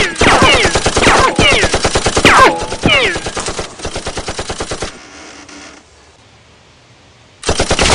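Automatic gunfire sound effect: several long bursts of rapid shots with ringing tones that fall in pitch. The bursts grow quieter after about three seconds and stop about five seconds in, and another burst starts near the end.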